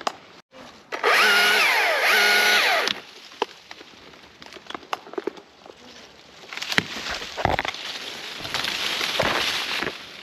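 Chainsaw cutting through a walnut limb in two short loud bursts, its pitch sagging under load and picking back up. After that comes several seconds of quieter rough, crackling noise with scattered sharp snaps as the cut wood works loose.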